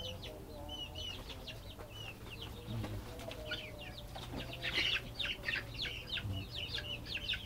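A flock of young kampung chickens peeping and clucking: many short, high cheeps over fainter low clucks, busiest in the second half.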